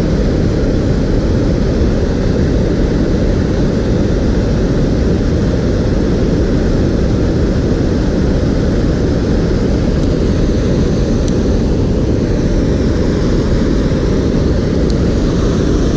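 Steady, loud rush of water pouring over a low weir into a stream, deep and unbroken.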